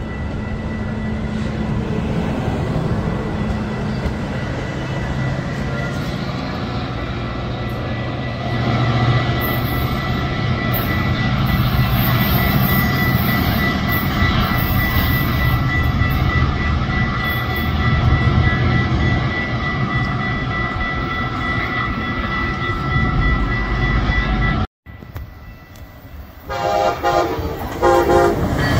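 A Metra commuter train at the platform runs with a steady low rumble and a thin high whine. After a sudden cut near the end, an approaching Amtrak train led by a Siemens Charger locomotive sounds its horn in a few blasts.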